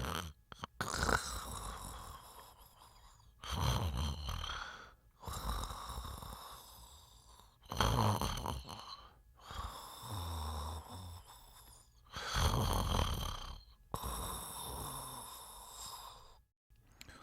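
A sleeping person snoring: four loud snores about four seconds apart, each followed by a quieter breath with a thin whistle to it.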